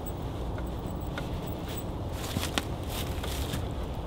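A few sharp knocks and clacks of pallet wood being handled and fitted into place, over a steady low outdoor rumble.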